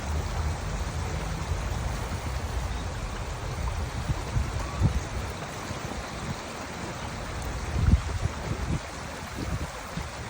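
Waterfall's water falling and splashing in a steady rush, with a few low thumps over it, the loudest about eight seconds in.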